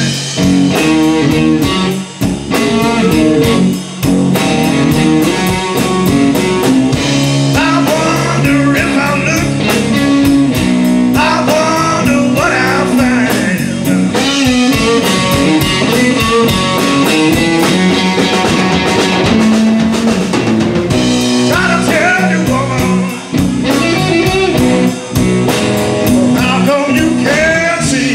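Live blues-rock band playing: electric guitar, bass guitar and drum kit, with a man singing in places.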